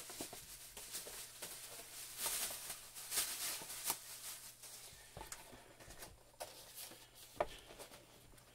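Thin plastic shopping bag rustling and crinkling as boxed action figures are pulled out of it, busiest in the first few seconds and then dying down, with one sharp tap about seven seconds in.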